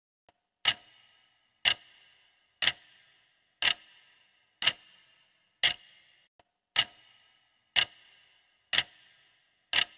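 Countdown-timer clock ticking sound effect: ten sharp ticks, one a second, each with a short ringing tail.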